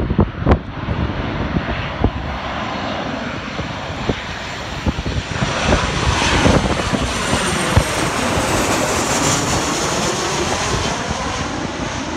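Twin-engine jet airliner on final approach flying low overhead: the engine noise builds to its loudest about six or seven seconds in, with a high engine whine that drops in pitch as it passes and then eases off. Wind knocks on the microphone at the start.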